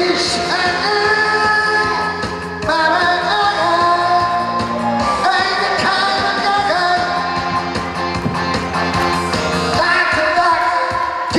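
A man singing a pop song into a handheld microphone, amplified, over instrumental accompaniment, holding long wavering notes.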